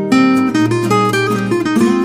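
Background music: acoustic guitar strumming chords, the chord changing about every half second.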